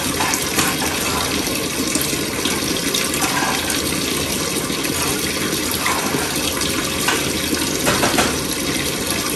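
Steak sizzling steadily in a hot frying pan, a continuous crackling hiss.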